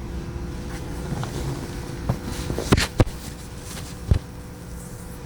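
Handling noise from an assisted stretch on a chiropractic table: light rustling and a few short sharp clicks or knocks, the loudest two close together about three seconds in, over a steady low room hum.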